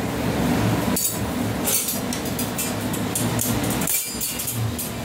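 Metal kitchen utensils clinking and scraping several times over a steady low hum.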